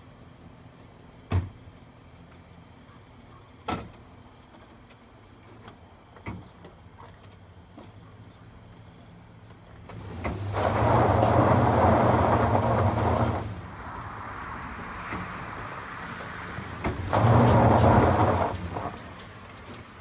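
Pickup truck engine revving up twice under load, once for about three seconds and again for about two seconds near the end, pulling on a tow strap hooked to a dump truck's super single tire to drag the tire off its rim. A few sharp knocks come earlier, over a low idling engine.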